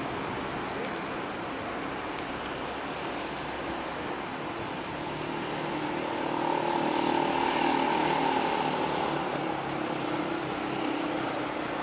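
Scania K420IB coach idling, a steady engine hum with a constant high whine over it, growing louder about halfway through.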